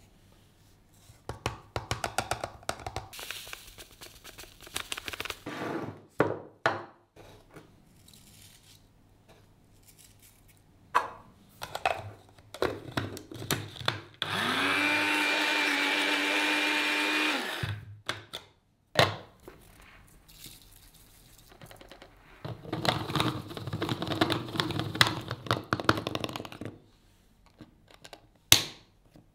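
Electric blade spice grinder running for about three seconds, its motor pitch rising as it spins up and then holding steady while it grinds dried spices. Before and after come knocks, rattles and pouring as jars and the grinder are handled.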